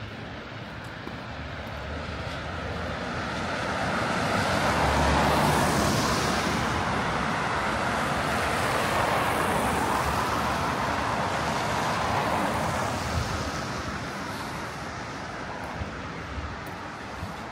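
Road traffic passing on a city street: vehicle noise swells a couple of seconds in, holds for several seconds, then fades away.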